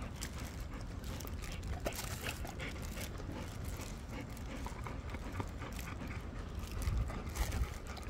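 Golden retrievers panting close by, with scattered small clicks and knocks.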